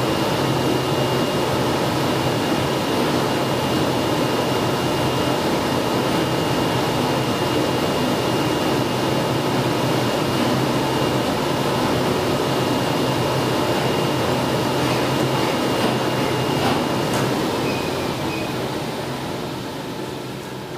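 RUK flatbed digital cutting table running while its oscillating knife head kiss-cuts reflective vinyl: a steady machine drone with a thin high whine on top. The whine stops about three-quarters of the way through, and the drone fades away over the last few seconds as the cut finishes.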